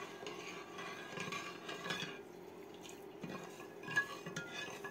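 Metal ladle stirring water in a metal pot to dissolve sugar, with soft scrapes and light clinks against the pot's side and bottom, the sharpest about four seconds in. A faint steady hum runs underneath.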